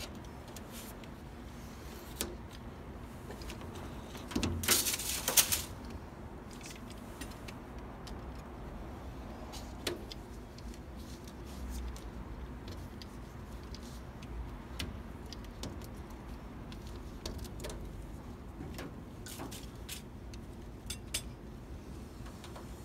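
Handling noise of hands working a rubber rear-window gasket out of a pickup cab: scattered light clicks and taps over a steady background, with a louder rattle lasting about a second some four and a half seconds in.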